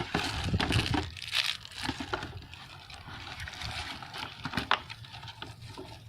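Small objects being handled and set down: scattered knocks and clicks with rustling, busiest in the first second and a half and thinning out after.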